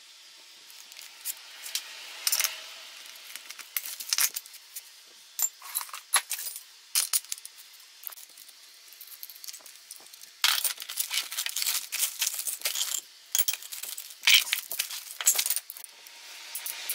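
Metal roller chain jangling and a socket wrench clinking as a motorcycle engine's front sprocket is unbolted and slid off its shaft: irregular sharp clinks and rattles, with a dense run of jangling past the middle and one louder clank a little later.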